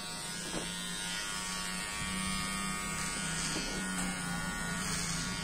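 Enchen Hummingbird cordless hair clipper running with a steady electric buzz while cutting hair at the side of the head, a little louder from about two seconds in.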